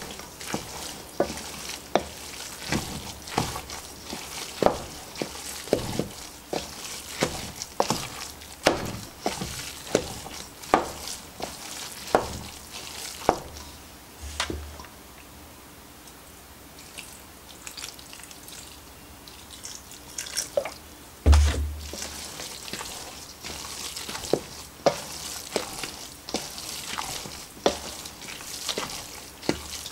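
Wooden spoon stirring a moist cornbread dressing mixture in a stainless steel mixing bowl: irregular wet squelches and clicks of the spoon against the metal, one or two a second. The stirring goes quieter for a few seconds past the middle, and there is a single dull thump about two-thirds of the way through.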